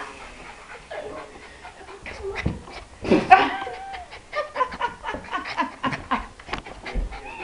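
West Highland terrier panting and making short excited noises, with one louder pitched cry about three seconds in.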